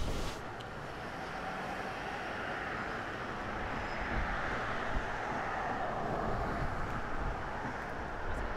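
Norfolk & Western Class J 611 steam locomotive working away in the distance: a steady rumble with no sharp steam hiss, swelling a little in the middle.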